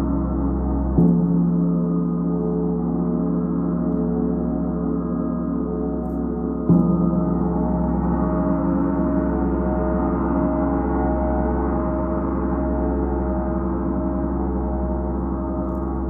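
Large suspended gong played with a felt mallet, struck about a second in and again near seven seconds. Each stroke renews a long, dense wash of overlapping ringing tones that pulses slowly and keeps sounding between strokes.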